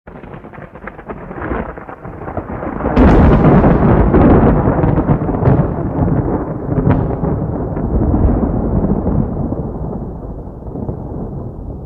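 A thunderclap: crackling strokes start suddenly, build to a loud peak about three seconds in, then give way to a long rumble that slowly fades.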